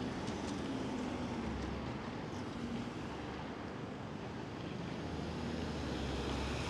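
Street traffic: a steady hum of passing vehicles, with a low engine rumble that falls in pitch during the first couple of seconds.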